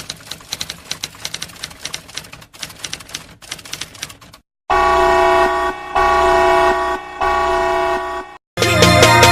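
Typewriter keys clacking in a quick, uneven run, then a loud horn sounding three blasts of about a second each. Electronic music starts near the end.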